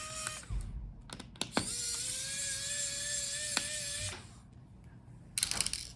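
Electric precision screwdriver motor running in two short spells, a steady whine that stops just after the start and starts again for about two seconds in the middle. Sharp small clicks of screws and parts being handled come between the spells and near the end.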